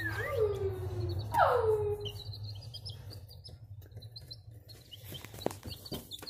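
Hatching chickens calling: two loud calls falling in pitch in the first two seconds, then a run of faint, short, high peeps from newly hatched chicks, over a low steady hum.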